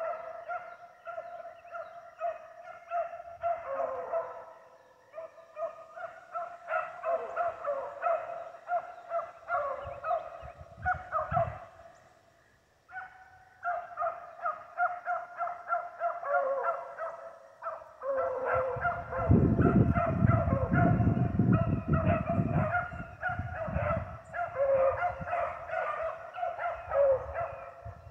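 A pack of beagles baying as they run a rabbit's trail, many short overlapping calls that drop out briefly a little before the middle. A loud low rumble sits under the baying for several seconds about two-thirds through.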